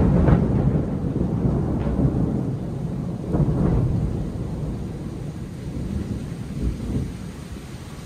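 Thunder rumbling and slowly dying away, swelling once more about three and a half seconds in, over steady rain.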